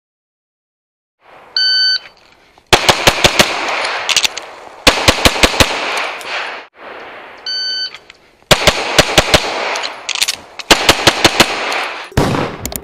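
A shot timer beeps about two seconds in and again about halfway through. Each beep is followed by strings of rapid semi-automatic pistol shots, four to six shots in under a second per string, fired at targets during a USPSA stage run.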